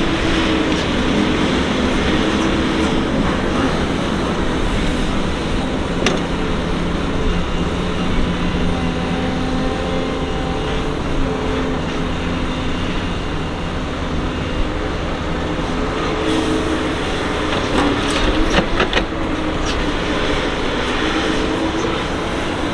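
Doosan DX225LC excavator's diesel engine and hydraulics working under load, the hum drifting up and down in pitch as it digs, swings and dumps earth into a dump truck. A few sharp knocks come through, once early on and several in a cluster about three quarters of the way in.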